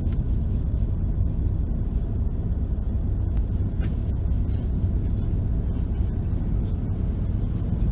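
Car driving along a road, with a steady low rumble of engine and tyre noise.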